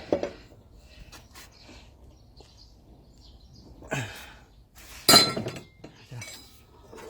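Metal clinks and knocks of hand tools on a front-loading washing machine's drum pulley while it is tightened up, with a few light ticks and one loud, ringing metallic clank about five seconds in.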